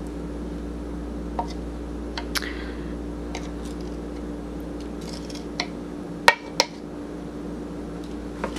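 Metal spoon scraping and tapping inside a plastic measuring cup and against a plastic mixing bowl as sticky honey is scraped out: scattered light clicks, the loudest pair about six seconds in, over a steady low hum.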